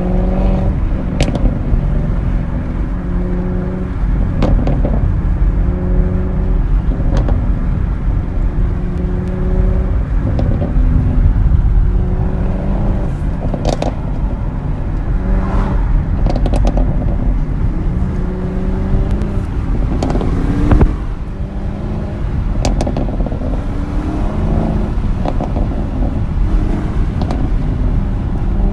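The 6.2 L LT1 V8 of a 2017 Chevrolet Camaro SS with a muffler delete is revved again and again, each rev held for a second or two. Sharp crackles and pops come from the exhaust between revs, and one loud pop comes about two-thirds of the way through.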